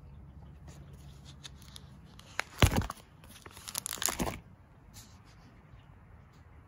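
A plastic photo-album sleeve page being turned, crinkling in two loud bursts about two and a half seconds in and again around four seconds, with lighter rustles around them.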